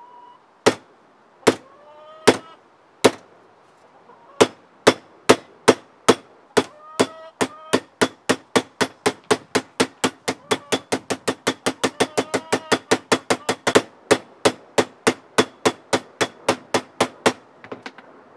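A small sledgehammer striking an old handsaw's steel blade laid flat on a wooden workbench, hammering out its bends to flatten the plate. It starts with a few spaced blows, then settles into a steady run of about two to three blows a second that stops shortly before the end.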